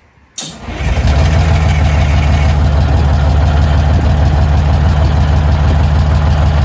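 Detroit Diesel 6V92 turbo two-stroke V6 bus engine firing up about a third of a second in and settling into a steady idle. It catches and runs properly now that its lost fuel prime has been restored by pushing diesel into the secondary fuel filter from a pump sprayer.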